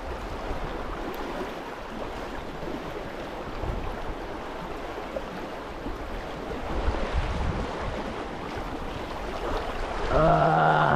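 Stream water rushing steadily, with wind buffeting the microphone in low gusts. A brief voice sound comes near the end.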